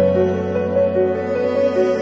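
Slow background music of long held notes over a steady bass, with a gentle melody line moving above.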